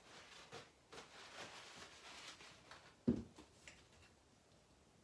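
Paper towel rustling as a fork is wiped clean, a dull thump about three seconds in, then a few light clicks of the fork working in a salad bowl.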